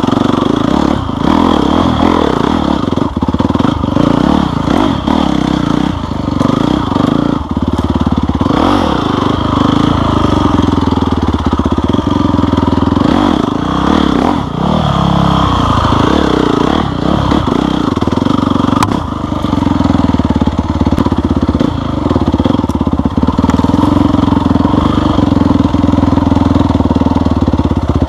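Off-road motorcycle engine running on a trail, its revs rising and falling continually, with occasional clatter.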